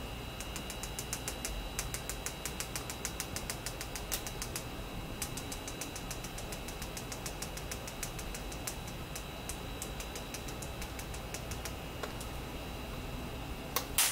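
Dried basil being dispensed from a spice container: a rapid run of small, even clicks that pauses briefly near the middle and thins out toward the end, followed by one sharper knock. A steady faint high whine and low hum sit underneath.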